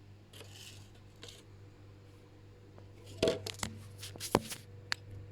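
Small household items being handled on a table: a quiet stretch, then a few sharp clicks and knocks between about three and four and a half seconds in.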